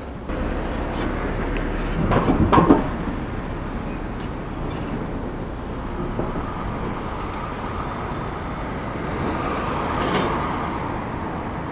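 Street traffic of cars and trucks heard from a moving bicycle: a steady wash of noise, with a louder burst about two seconds in and a faint hum coming up in the second half.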